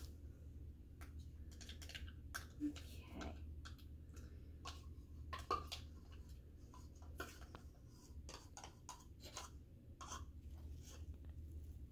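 Scattered light clicks and taps of plastic measuring cups and bowls being handled on a table while glue is poured, over a low steady hum.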